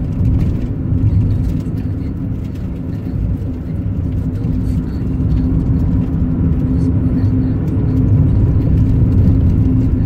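A moving car's engine and tyres on a wet road, heard from inside the cabin as a steady low drone with a constant hum.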